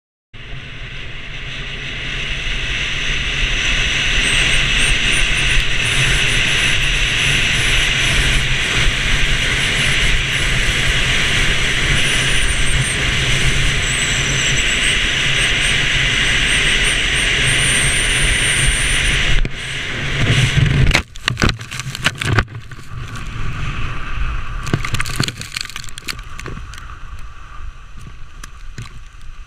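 Steady rush of wind over a skier's camera and the hiss of skis on snow during a fast downhill run, with a faint high whistling. About twenty seconds in this breaks off into a series of knocks and thumps as the skier crashes and tumbles, followed by softer scraping and rustling in the snow.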